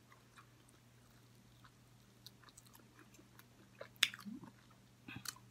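Close-up chewing of chicken wing meat: faint wet mouth clicks, with a sharper click about four seconds in and a few more near the end.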